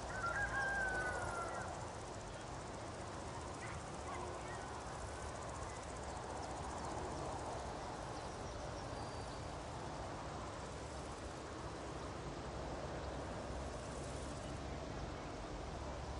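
Meadow nature ambience: a steady soft outdoor hiss, with a short wavering bird whistle in the first second or so and a few faint chirps about four seconds in.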